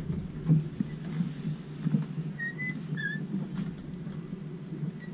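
Low background murmur with two short, high chirps about halfway through, and a few faint clicks.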